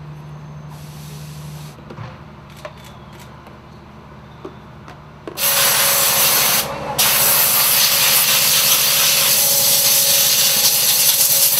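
Rubber gloves rustling and snapping as they are pulled on. Then a loud, steady hiss of compressed air with a faint whistle, blown through a car's pleated panel air filter to clean out the dust. The air comes in two long blasts with a short break between them.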